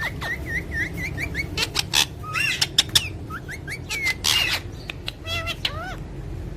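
Pet parrots chirping and calling: a quick run of short repeated chirps at first, then scattered rising and hooked calls mixed with sharp clicks and rasping bursts.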